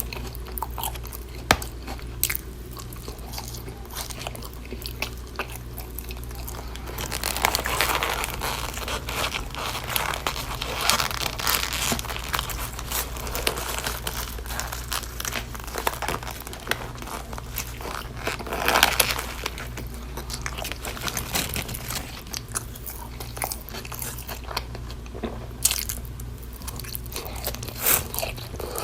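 Close-miked chewing and biting of a burger and fries: irregular wet mouth sounds and crunches, with denser, louder chewing about a quarter of the way in and again around two-thirds through. A steady low hum runs underneath.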